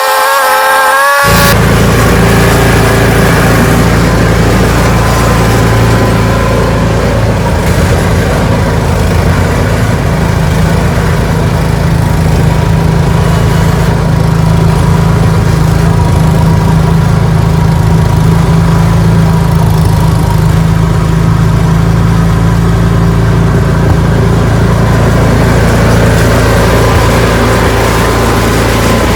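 Ariens 624E snowblower engine running steadily at working speed, holding an even pitch throughout. In the first second a brief wavering tone cuts in, then gives way to the engine.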